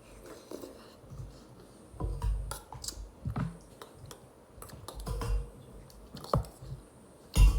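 Close-up eating of cooked chicken by hand: irregular clicks, smacks and light taps from chewing and picking at the meat, with a heavier thump near the end.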